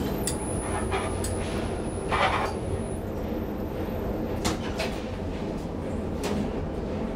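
1999 KONE inclined elevator's sliding doors closing, with a short loud rush about two seconds in, amid scattered sharp clicks over a steady low hum and a thin high whine that fades out about three seconds in.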